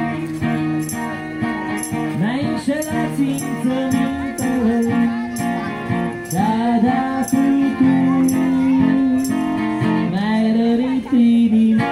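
Electric guitar through a small amplifier playing an instrumental passage, with held and bending notes over a steady beat of high ticks about twice a second.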